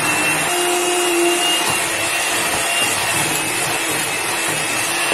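Moulinex Supermix 150 electric hand mixer running steadily, its beaters whipping ghee and sugar in a plastic bowl, with a steady high motor whine. The fat and sugar are being creamed hard until the mixture turns pale.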